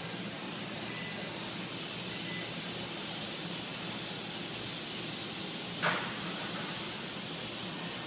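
Steady hissing background noise, with one short click about six seconds in.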